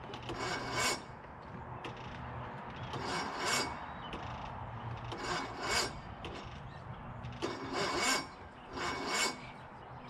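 Five short bursts of a starter motor cranking the Case 1816C skid steer's gas engine, each under a second long and about two seconds apart. The engine does not catch.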